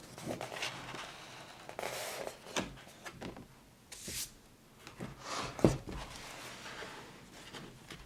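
Rustling and rubbing handling noises, as of a paper booklet and its packaging being moved about, with a sharp knock a little over halfway through.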